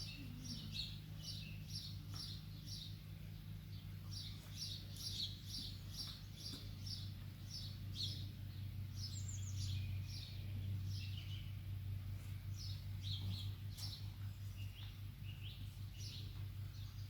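Small birds chirping, with runs of short, quickly repeated high notes throughout, over a steady low hum.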